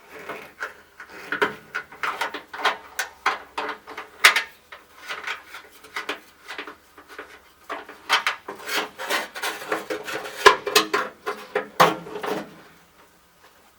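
Irregular clicks, knocks and rattles of dashboard parts being handled and pushed while trying to clip a component of a headlight switch installation into place under a truck's dash. The sounds go quiet near the end.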